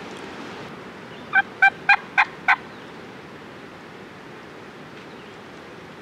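Wild turkey yelping: a quick series of five short, evenly spaced yelps, about four a second, over a steady background hiss.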